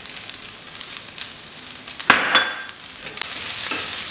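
Noodles and vegetables sizzling softly in a hot wok; about two seconds in a metal spatula scrapes through them against the pan as stir-frying begins, and the sizzle grows louder.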